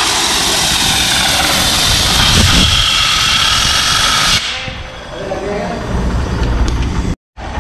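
Compressed-air blow gun hissing loudly as it blasts dirt and cleaning fluid off a motorcycle drive chain, cutting off suddenly about four seconds in. A lower rumble follows near the end.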